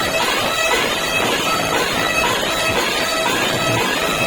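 Loud, continuous shrill whistling: several held tones over a dense wash of noise, with a reedy drone.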